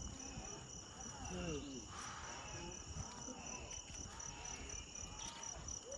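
Crickets chirping in a steady, evenly pulsing high trill, with faint distant voices underneath.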